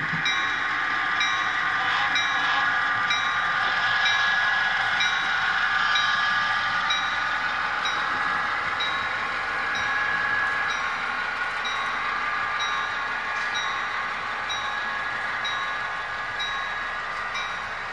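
Sound decoder in a model diesel locomotive playing a running engine with the locomotive bell ringing steadily, about one and a half strokes a second.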